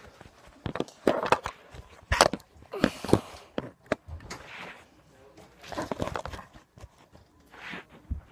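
Irregular knocks, rustles and clicks of a phone being handled and moved about, with shuffling on carpet.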